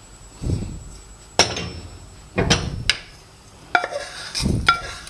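Wooden spatula scraping dry-roasted whole spices out of a non-stick pan into a steel grinder jar, in a handful of uneven scrapes and sharp knocks of wood and pan against the jar.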